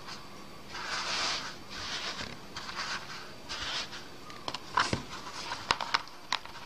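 Terry-cloth towel rustling in several soft swishes as it is spread and smoothed over the dough by hand, followed by a few sharp clicks and taps near the end.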